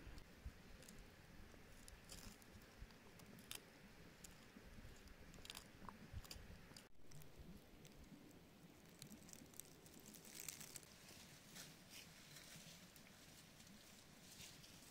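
Near silence: a faint outdoor hiss with scattered small clicks and crunches, a little denser in the second half.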